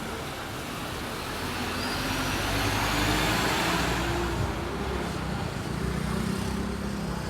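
Fire engine driving past, its engine and tyres growing louder to a peak about three seconds in, then easing off.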